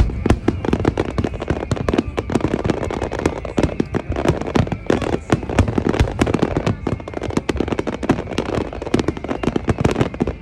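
Aerial fireworks shells bursting in a dense, rapid barrage, with many bangs and crackles each second, as in a grand finale.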